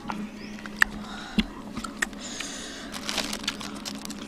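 Wild honeycomb and a plastic bag being handled: scattered crackles and a few sharp clicks, over a faint steady hum.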